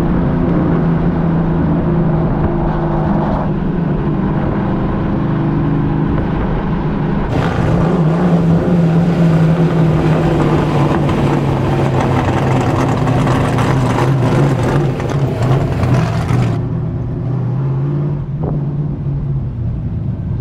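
Straight-piped 540 cubic inch Donovan aluminum big-block V8 of a 1969 Z28 Camaro cruising on the street. It holds a low, steady exhaust note with small rises and falls in pitch, and the sound changes abruptly about seven and sixteen seconds in.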